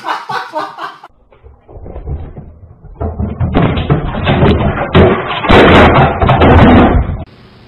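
Loud banging and clattering as a flat-screen TV topples off its low stand and crashes onto a tiled floor, picked up by a security camera's microphone. The bangs start about three seconds in, are loudest near the end, and stop abruptly.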